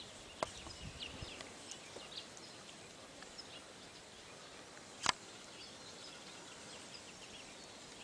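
Quiet outdoor background with small birds chirping now and then. A sharp click about half a second in, and a louder sharp crack about five seconds in.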